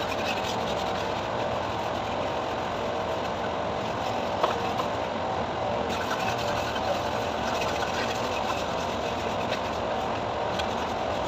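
A steady mechanical drone, like a machine or engine running, with a single light click about four and a half seconds in.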